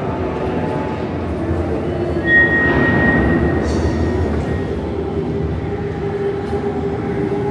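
Dark-ride car running along its track with a steady rumble, held tones from the ride's show audio underneath. A brief high, thin tone and a swell in level come a little over two seconds in.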